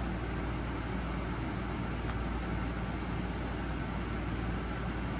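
Steady low background hum and hiss, unchanging throughout, with one faint tick about two seconds in.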